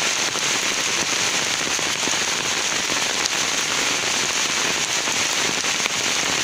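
Steady heavy rain falling on a makeshift sheet-covered shed roof and wet ground, with water pouring off the roof edge. It is an even, unbroken hiss throughout.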